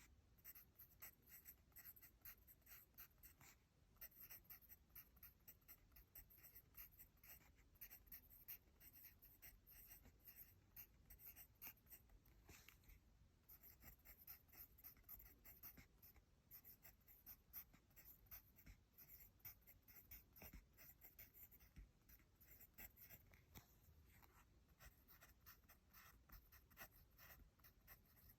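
Faint pencil scratching on paper as someone writes by hand, in quick, short strokes, with a couple of brief pauses.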